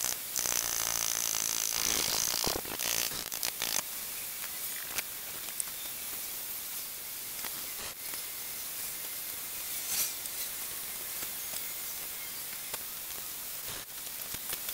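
Light taps and clicks of hand tools on a bare engine block over a steady hiss. In the first few seconds a piston is tapped down into its cylinder bore with a hammer handle through a ring compressor, and near the end a ratchet works on the connecting-rod cap bolts.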